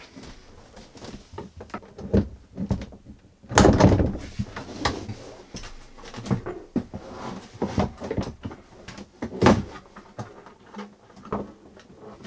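Plastic separating-toilet parts being handled and set in place on the base plate: irregular knocks, clunks and rattles, the loudest about three and a half seconds in and again about nine and a half seconds in.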